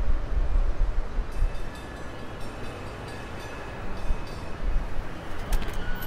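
Outdoor street ambience: a steady low rumble, with faint high squealing tones through the middle and a few sharp clicks near the end.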